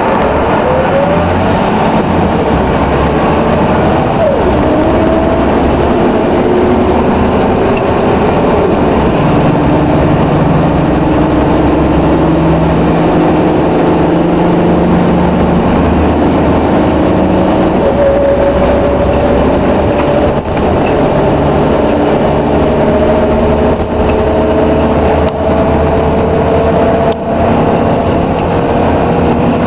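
Scania K93CRB bus's rear-mounted nine-litre diesel engine and driveline heard from inside the saloon while under way, a steady low rumble with whining tones that climb slowly as it pulls. The level dips briefly a few times in the second half.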